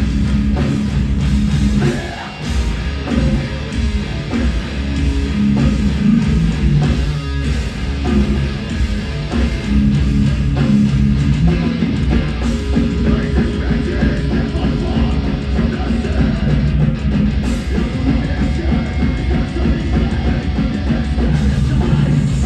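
A heavy metal band playing live: distorted electric guitars, bass guitar and a drum kit, loud and dense throughout.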